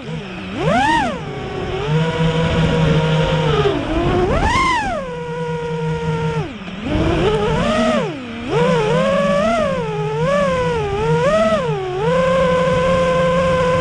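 FPV freestyle miniquad's brushless motors and propellers whining, heard from the quad's onboard camera, the pitch sweeping sharply up and down with each throttle punch and chop and wobbling quickly for a few seconds, then holding at a steady pitch near the end.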